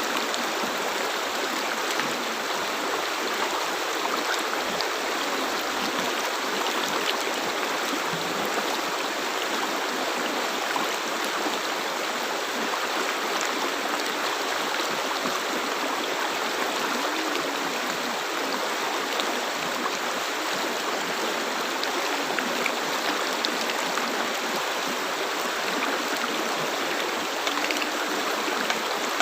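River water flowing over rocks: a steady rushing and burbling with small splashes and gurgles throughout.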